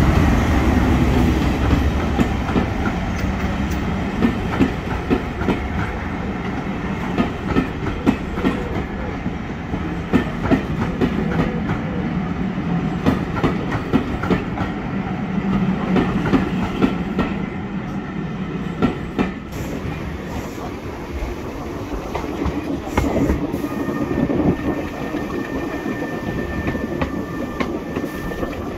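Class 37 diesel locomotive's English Electric V12 engine running as it passes, followed by its coaches' wheels knocking over rail joints in a clickety-clack rhythm. About two-thirds of the way through the sound changes to steady wheel and rail noise heard from aboard a moving train.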